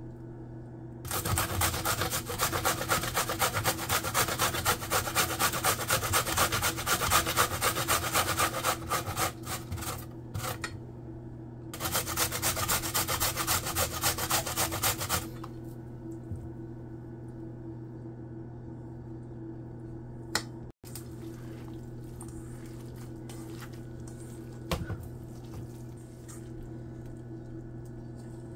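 Carrot grated by hand on a stainless steel box grater: a long run of quick, rhythmic rasping strokes, a short pause, then a second, shorter run. After that only a steady low hum is left, with a couple of light knocks.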